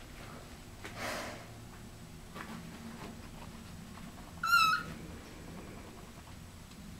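A kitten gives one short, high-pitched mew about four and a half seconds in.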